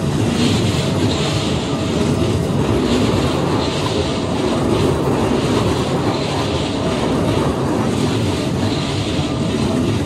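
Train running past close by over the level crossing: a loud, steady rolling rumble with a hiss above it.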